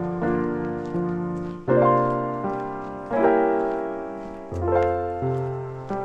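Background piano music: slow chords, each struck and left to fade before the next.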